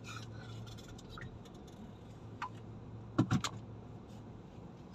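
Steady low hum inside a car cabin as the car idles in traffic, with scattered light clicks and two short louder knocks about three seconds in.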